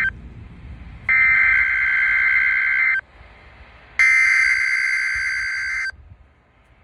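Weather radio Emergency Alert System (SAME) header: two harsh, buzzing data-tone bursts about two seconds each, a second apart, heard through a walkie-talkie's speaker. They mark the start of an EAS required weekly test.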